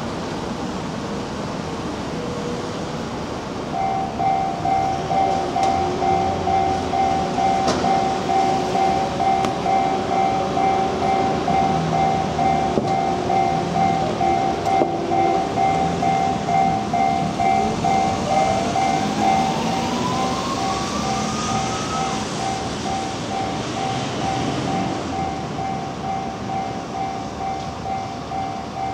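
Japanese railway level crossing alarm starting about four seconds in and ringing on as a steady, repeating electronic warning tone. An electric commuter train runs through the crossing, its motor whine rising in pitch from about seventeen to twenty-two seconds in.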